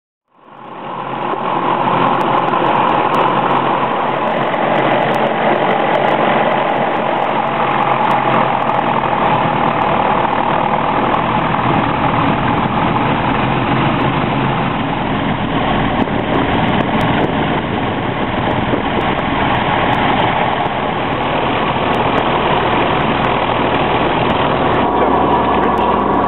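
Robin DR400's four-cylinder piston engine and propeller running steadily, heard from inside the cockpit with the aircraft on the ground. The sound fades in over the first second or two.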